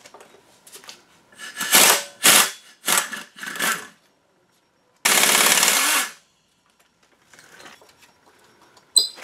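Cordless impact tool with a 6 mm Allen bit loosening pulley bolts: four short hammering bursts, then about a second of continuous running as a bolt spins out. A sharp metallic clink comes near the end.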